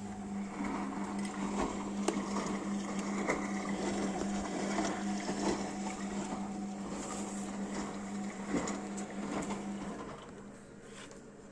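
Washing machine running with a steady low hum, with clicks and knocks over it; the hum stops near the end.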